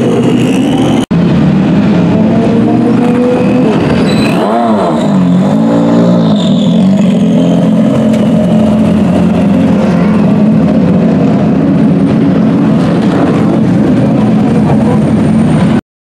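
Prototype race car engines running at low speed, with the engine pitch dipping and swinging back up about four to six seconds in as the throttle is worked. The sound drops out for an instant about a second in and again just before the end.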